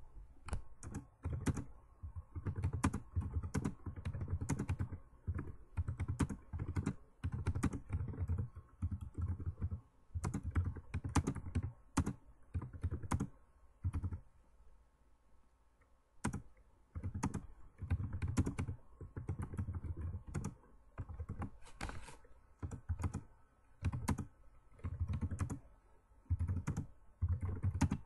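Typing on a computer keyboard: quick runs of keystrokes in irregular bursts, with short breaks between words and a longer pause about halfway.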